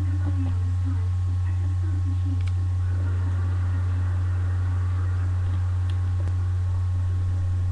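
Steady low electrical hum throughout, with a faint murmur and a few small clicks.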